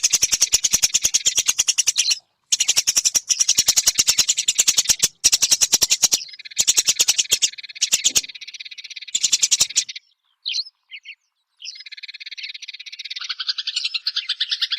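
Eurasian tree sparrow chirping in a fast, dense string of short high chirps. The string breaks off at about ten seconds, leaving a few lone chirps, then resumes more softly.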